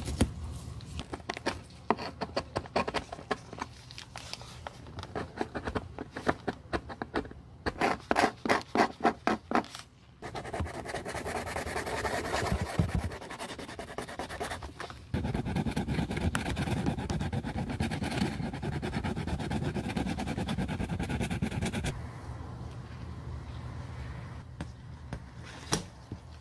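Hand-scraping old material off a high-heeled shoe's heel: a run of short scratching strokes that come quickly, about three or four a second, near the middle. Then a steady scraping that grows louder for several seconds and drops away, with one sharp click near the end.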